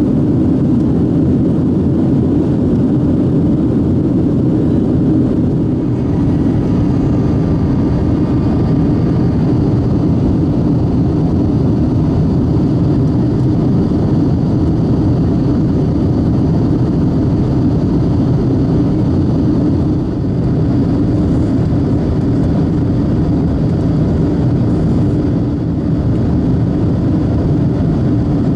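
Boeing 737-800's CFM56-7B jet engines and airflow heard inside the passenger cabin as a steady, loud rumble, with a faint high whine that comes in about a quarter of the way through.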